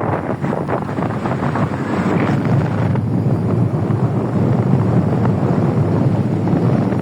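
Wind buffeting the microphone aboard a boat under way, over the steady rush of the boat moving through the water.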